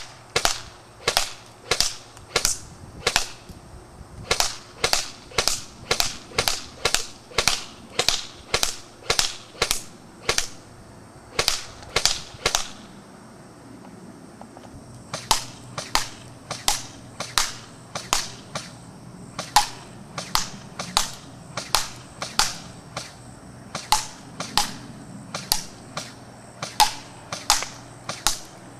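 Echo 1 M4A1 airsoft electric rifle firing on semi-auto: a steady string of sharp cracks at about two shots a second. The shots stop for a couple of seconds about halfway through, then carry on at the same pace.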